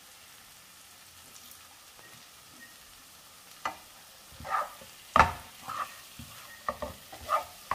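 Onion-tomato masala with quail eggs sizzling faintly in a nonstick frying pan. About three and a half seconds in, a wooden spatula starts stirring it, with several sharp scrapes and knocks against the pan.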